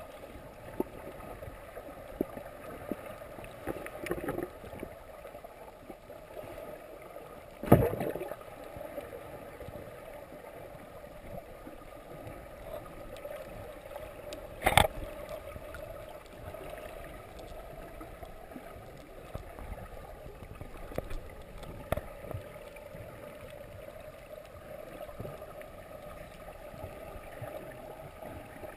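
Underwater ambience heard through a GoPro's waterproof housing: a steady muffled hiss scattered with small clicks, and two sharp knocks, about a quarter of the way in and again near the middle.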